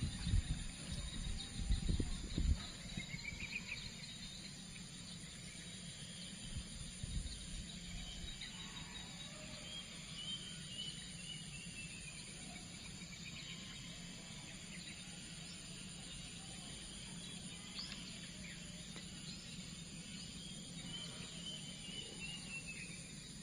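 Outdoor nature ambience: a steady high insect drone, with a bird repeatedly giving short down-slurred call phrases, a few seconds apart. A few low thumps and rumbles in the first two seconds or so.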